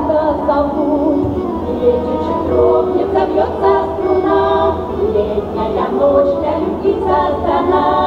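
A women's folk ensemble sings a Russian folk song together, several voices in harmony.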